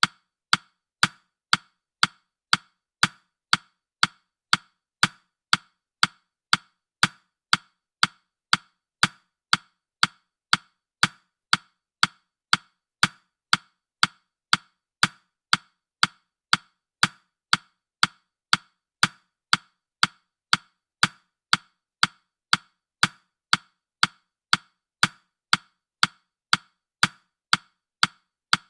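Countdown timer ticking steadily, about two sharp, even ticks a second.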